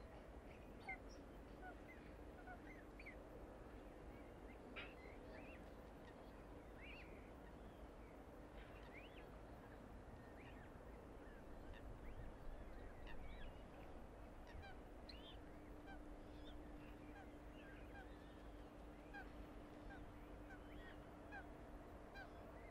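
Many short bird calls and chirps scattered throughout, faint, over a steady low hum and rumble.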